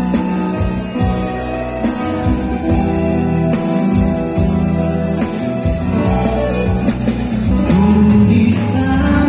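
A small band playing a song: acoustic guitars and an electric bass guitar with a tambourine shaken along, and a singer's voice over them.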